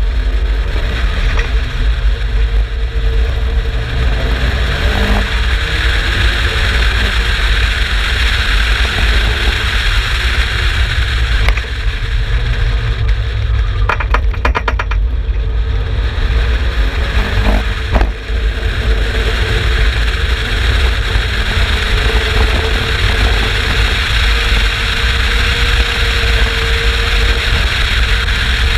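Exocet kit car's turbocharged Mazda MX-5 1.8 BP four-cylinder running hard on a race track, heard as a continuous loud engine and road noise with a heavy low rumble, easing briefly twice.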